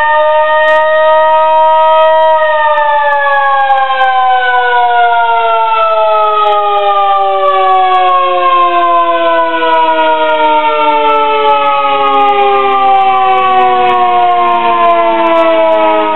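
Fire truck's air siren wailing: its pitch creeps up for about two seconds, then slides slowly and steadily down through the rest, still sounding at the end.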